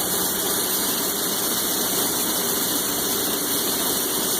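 Hobart 5801 commercial meat band saw with its three-phase Hobart motor running steadily, the blade turning freely with nothing being cut.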